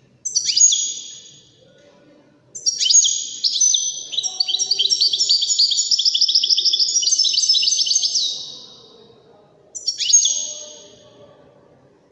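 European goldfinch singing. A short downward-sweeping call comes first, then a long, rapid twittering phrase of about six seconds, then another short downward call near the end.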